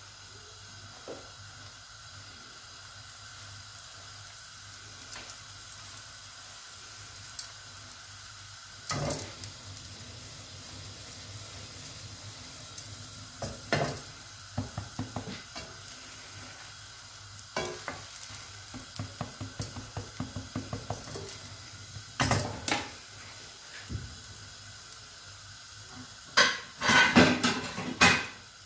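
Beaten egg and bread frying in a nonstick pan with a steady low sizzle, broken by several bursts of clattering and knocking as the pan is jostled and turned on the gas burner's grate, the loudest burst near the end.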